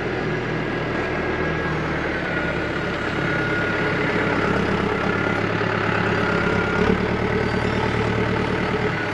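Massey Ferguson tractor's diesel engine running as its front loader works, lifting a bucket of manure. The engine comes under more load about two seconds in and stays there, with a thin whine riding over it.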